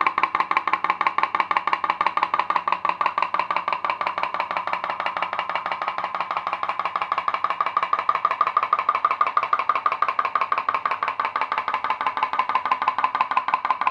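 Home-made pop-pop boat's aluminium drink-can boiler popping in a rapid, even rhythm with a steady ringing pitch, its membrane flexing as the tea light boils the water inside.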